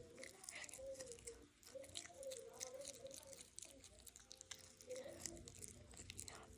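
A pet chewing a treat: faint, quick, irregular crunches.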